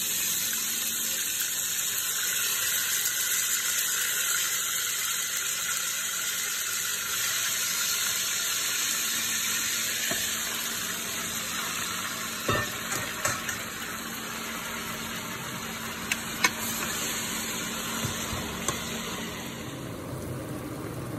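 Seasoned pork pieces sizzling in hot oil in a covered pot: a steady hiss, with a few sharp clicks in the second half.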